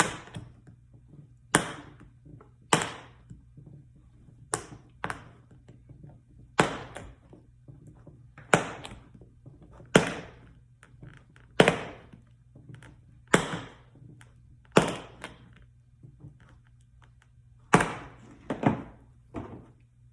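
Sharp clicks, one every second or two, as an awl pries staples up out of an armrest console shell to release the cover material.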